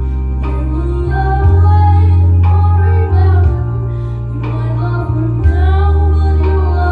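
A girl singing a slow pop melody into a handheld microphone, over a backing track of held low notes that change every couple of seconds.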